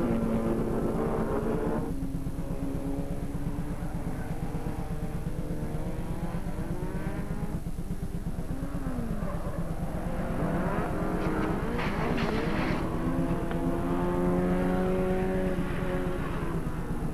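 Several small racing cars' engines revving, their notes rising and falling over one another as the pack drives through the corners. There is a brief clattering burst about twelve seconds in.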